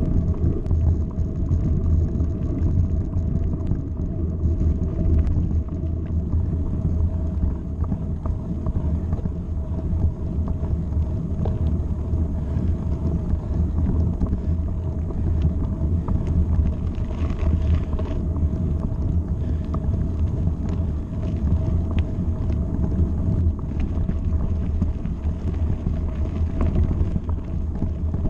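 Mountain bike tyres rolling over a gravel track: a steady low rumble with a constant faint hum and scattered small ticks from loose stones.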